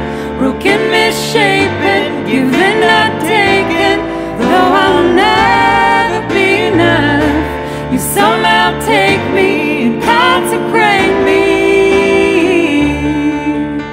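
A woman and a man singing together to a Roland digital piano's chords. The voices stop about a second before the end, leaving a held piano chord.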